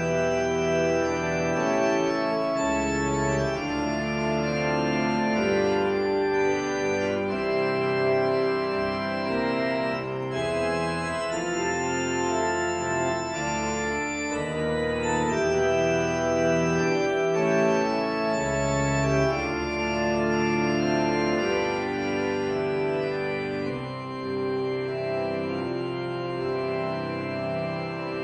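Church organ playing slowly in sustained, held chords, with deep bass notes coming in twice. It grows a little softer near the end.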